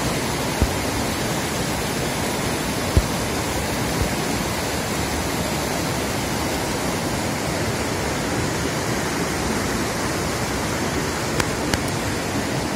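A mountain river rushing over rocks and through small rapids: a steady, even noise of running water. A brief low knock is heard about three seconds in.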